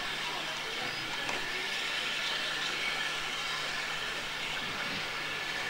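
Stationary steam locomotive No 3 Twizell hissing steam steadily, with no exhaust beats.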